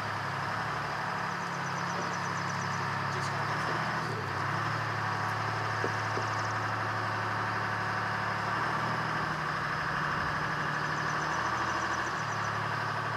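An AVGP Cougar's Detroit Diesel engine running steadily at low speed as the armoured car slowly pushes a towed truck, its note shifting slightly a few times.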